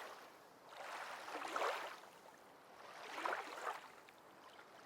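Two faint swells of rushing noise, each rising and fading over about a second, like water washing in.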